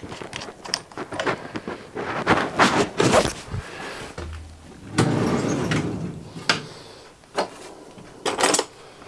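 Metal clunks, knocks and scraping as a metal casting and clamping pieces are shifted about on a milling machine table, with a longer sliding scrape about five seconds in.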